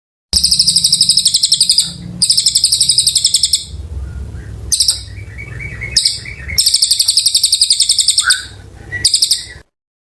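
Cililin bird singing in long, rapid, high-pitched trilled phrases, two long ones at the start and another in the second half, with short bursts and a softer, lower run of chirps between them. A low hum runs underneath.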